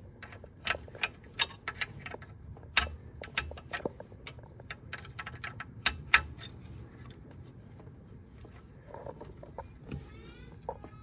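Wrench and nuts on the golf cart's accelerator cable bracket clinking: a run of sharp, irregular metal clicks and taps as the nuts are worked loose.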